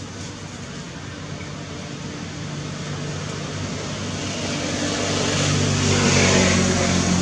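A motor vehicle approaching, its engine hum and road noise growing steadily louder and loudest about six seconds in.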